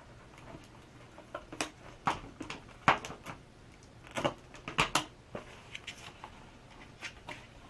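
Hands taping a foam board fuselage: scattered crackles and clicks of tape being stretched and pressed down along the board's corner, with a few sharper clicks and knocks, the loudest about three seconds in.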